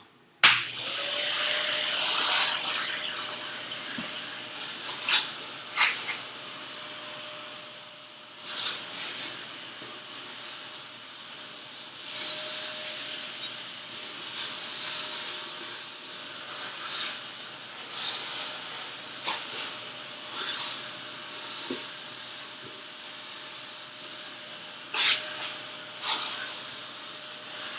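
Shop vacuum switched on about half a second in, its motor running with a steady high whine under a rushing hiss of suction. The loudness rises and falls as the nozzle is moved over the mess, with scattered sharp clicks of debris being sucked up.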